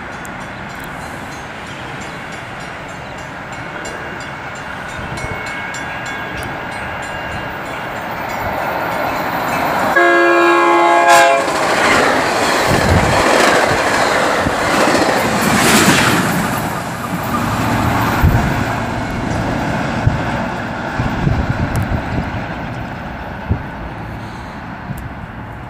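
A Metra commuter train pushed by an F40PH diesel locomotive at its rear runs through the station. Its rumble builds as it approaches, and a single horn blast of just over a second sounds about ten seconds in. The bilevel cars then pass loudly with wheels clacking over the rail joints, fading near the end.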